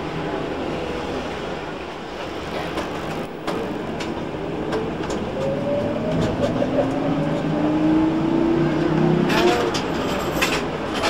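Ride inside an electric trolleybus: steady road and rain noise with the traction motor's whine rising in pitch as the bus gathers speed. A cluster of sharp clicks near the end.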